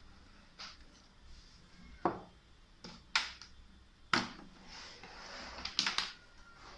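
Sharp clicks and light knocks of small hard parts being handled: single ones about 2, 3 and 4 seconds in, and a quick double click near the end.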